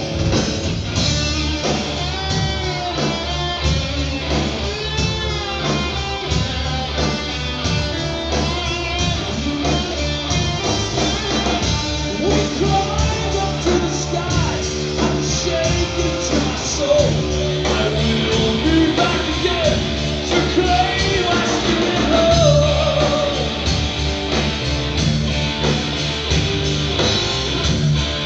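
Live rock band playing, electric guitar prominent over drums.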